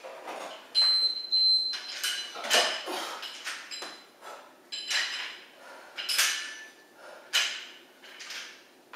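Workout movement noises: sharp scuffs and squeaks of sneakers on a wooden floor during dumbbell swings, about one to two strokes a second. A held high squeak comes about a second in.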